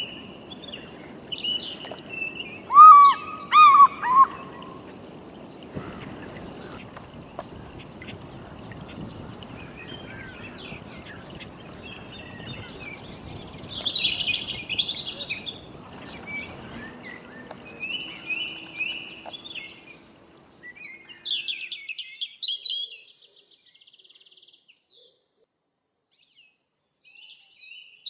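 Recorded birdsong ambience: several birds chirping and trilling over a low outdoor background, with a few loud calls about three seconds in. The background noise drops away after the middle, and the sound dies almost to silence for a few seconds before birdsong starts again near the end.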